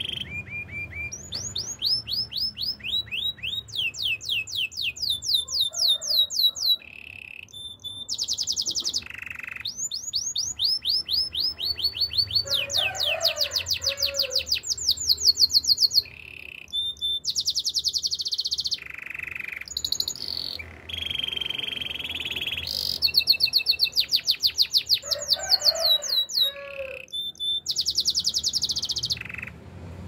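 Domestic canary singing a long, continuous song. Phrase after phrase of fast trills made of repeated down-slurred notes changes every second or two, broken by short held whistles and buzzy rolls.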